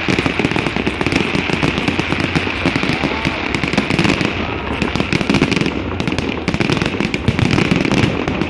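Fireworks going off in quick succession: a dense, continuous run of pops and crackles without a break.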